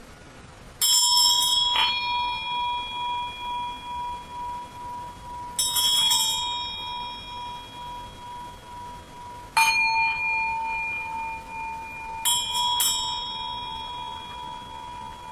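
Tibetan singing bowls (standing bells) struck, about every four seconds and often twice in quick succession, each strike ringing on in a long tone with a slow wavering pulse as it fades.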